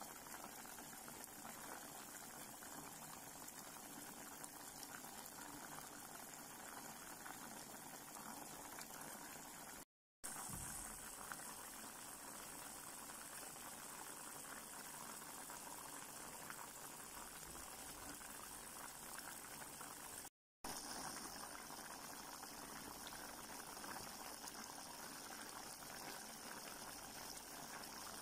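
Coconut milk with string beans boiling in a pot: a faint, steady bubbling, broken by two brief dropouts to silence about ten and twenty seconds in.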